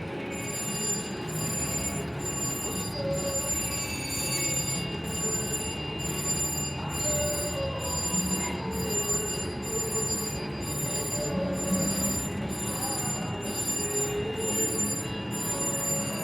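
Casino slot machine sounds: electronic jingles and chiming tones over a steady background din, with high tones that pulse on and off a little more than once a second.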